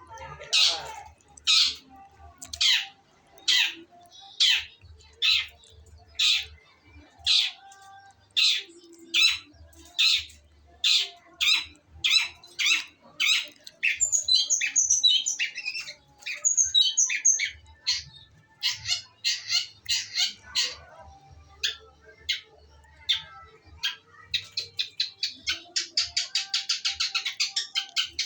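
Female long-tailed shrike (cendet) calling: short calls repeated about one and a half times a second, a spell of higher chattering notes about halfway through, and a fast run of rapid notes near the end.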